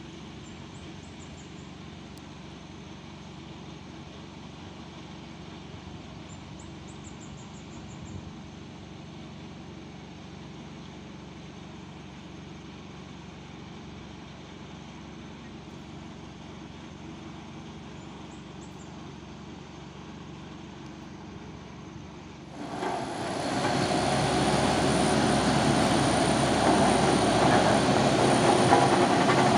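Single-drum road roller's engine running at a distance, a steady low hum. About 22 seconds in, the sound jumps abruptly to the roller working close by, much louder and denser.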